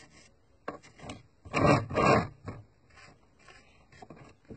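Paintbrush scrubbing oil paint onto a plastic model tank in a few short strokes, the two loudest close together about a second and a half in, with light taps between.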